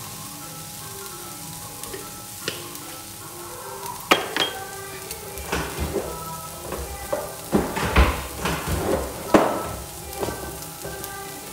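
Chicken and vegetables sizzling in a frying pan, a steady hiss. From about four seconds in, a run of sharp clinks and knocks against the pan breaks in for several seconds.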